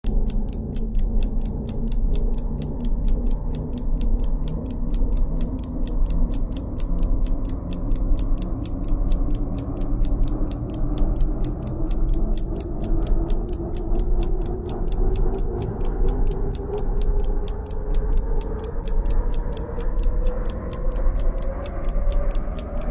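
Ticking-clock sound effect, steady and fast, over a low droning music bed whose tone slowly rises in pitch.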